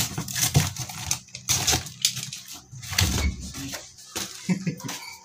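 Cardboard box being cut open with a utility knife and its cardboard flaps torn and pulled away: irregular scraping, ripping and rustling.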